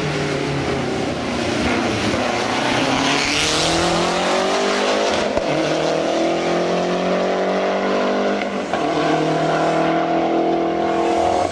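Lancia Delta Integrale rally car's turbocharged four-cylinder engine accelerating hard away up a hill-climb course. It holds steady revs at first, then rises in pitch for several seconds, dips briefly about eight and a half seconds in as it changes gear, and climbs again.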